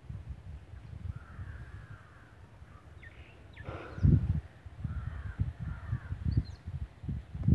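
Crows cawing several times, over a low rumble on the microphone, with a loud handling bump about four seconds in.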